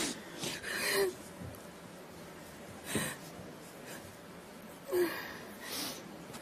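A woman crying: a string of breathy sobs a second or two apart, some carrying a brief voiced cry.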